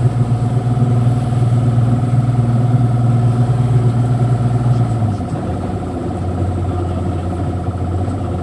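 SJX 2470 jet boat's engine running at low speed, a steady drone that drops to a lower, slightly quieter note about five seconds in as it is throttled back.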